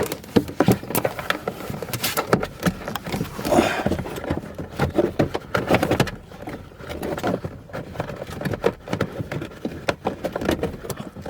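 Irregular clicks, knocks and rustling scrapes of hands working wiring through a pickup truck's plastic interior trim.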